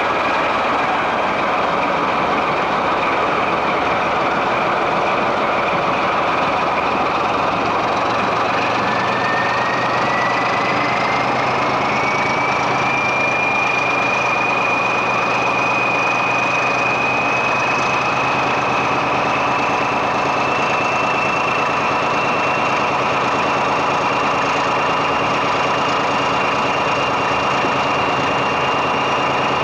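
BR Class 14 diesel-hydraulic locomotive's Paxman Ventura diesel engine working under power as the locomotive pulls away, heard close up from the cab side. About eight seconds in, a high whine starts, rises in pitch over the next few seconds, then holds steady to the end.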